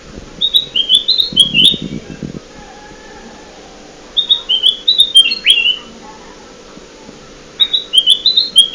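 Kutilang emas, a bulbul, singing a lure call: three short phrases of quick, clear, bubbling notes a few seconds apart. A brief low rumble comes under the first phrase.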